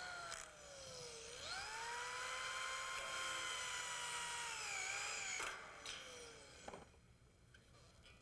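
Power drill driving a fastener into galvanized steel tubing to fix a flat angle bracket. The motor whine dips at the start, climbs and holds steady for about three seconds, then winds down, with a few sharp clicks near the end.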